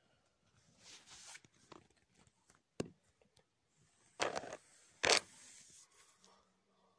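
Handling noise of a phone rubbing against clothing: fabric rustling and scraping on the microphone, with a sharp click near three seconds in and two louder scrapes about four and five seconds in.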